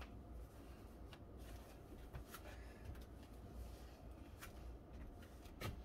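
Faint rustling of clothing fabric being tugged and adjusted, with a few soft scattered ticks, over a low steady room hum.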